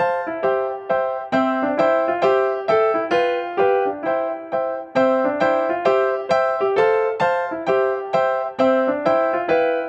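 Background instrumental music: a bright melody of evenly struck notes, about three a second, each fading away after it sounds.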